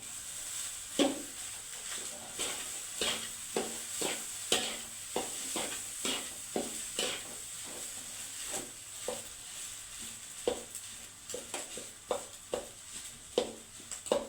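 Leftover rice being stir-fried into fried rice in a pan: a spatula scrapes and tosses it about twice a second over a steady sizzle, the strokes coming a little faster near the end.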